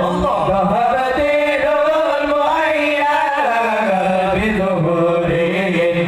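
A group of male voices singing a sholawat, an Islamic devotional chant in praise of the Prophet, into microphones, in long wavering notes that slide up and down in pitch.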